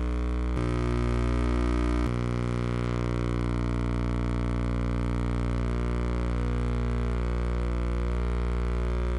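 Background music: low, sustained droning chords that change about half a second in and again about two seconds in, then hold steady.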